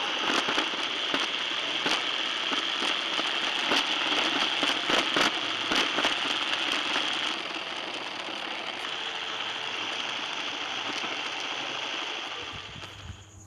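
Emax Interceptor RC car's motor, gears and tyres running over a tiled floor, heard close up through its onboard camera's microphone: a steady noise with scattered clicks. It drops a little about seven seconds in and fades near the end.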